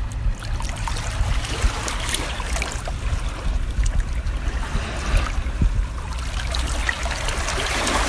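Small shore waves washing in and trickling back over the sand at the water's edge. The wash swells twice, about two seconds in and again near the end, over a steady low rumble.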